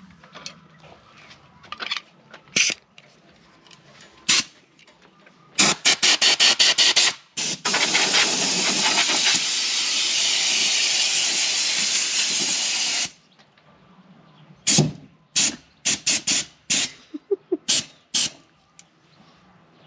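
Compressed air hissing out of an air-compressor accessory being tested. It comes as a quick run of short blasts, then one steady blast of about five seconds, then several more short blasts near the end.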